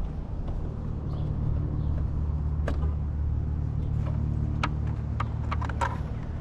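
Sharp plastic clicks as the fairing's push-pin clips are pushed out and handled, several in quick succession near the end. Under them runs a steady low hum of a vehicle engine running.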